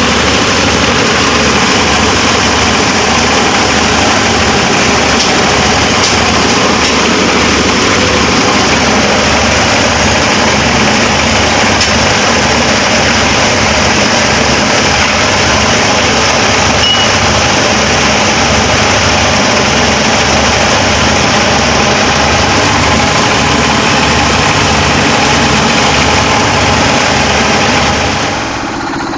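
Plastic crusher machine running steadily and loudly, with a regular low throb under a dense mechanical noise; the level drops shortly before the end.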